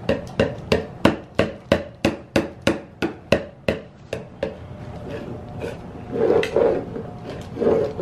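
A clear plastic cup being banged again and again on a hardwood floor: an even run of sharp, hollow plastic knocks, about three a second, that dies away about four and a half seconds in.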